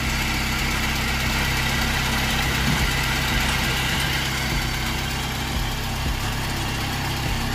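Four-cylinder 1.4-litre engine of a 1996 Volkswagen Polo idling steadily, heard close by at the gearbox with its fifth-gear end cover removed.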